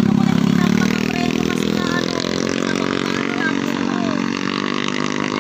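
A motor vehicle's engine passing close by, a steady hum that rises slightly in pitch over the first second and then holds.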